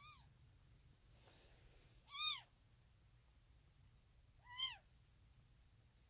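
Newborn kitten mewing: three short, high-pitched cries, a faint one at the start and two louder ones about two and four and a half seconds in.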